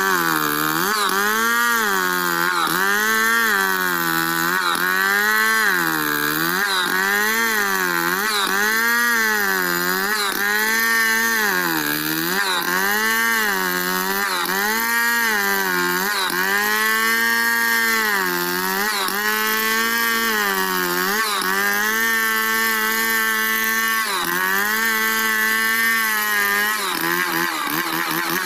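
Stihl two-stroke chainsaw ripping lengthwise through a log, freehand milling a board. It runs loud and under load, its pitch sagging and recovering about every second and a half as it bites into the cut.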